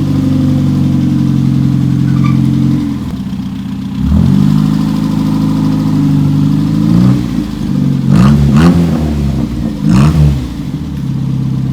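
Toyota KP30 Starlet's 4K four-cylinder engine, breathing through a freshly welded exhaust and new muffler, idling and then revved in several quick blips about four, seven, eight and ten seconds in, the pitch rising and falling each time before it settles back to idle.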